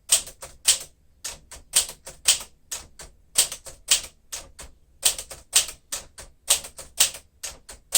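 1953 Smith-Corona Super manual typewriter being typed on: a steady run of sharp typebar strikes, several a second, as the character test is typed out.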